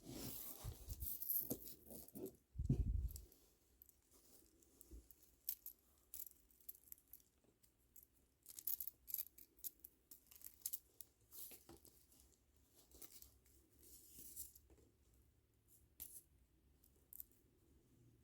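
Plastic kandi beads clicking and rattling against each other, with light rustling of the cord, as a beaded cuff is handled and restrung by hand. A soft thump about three seconds in.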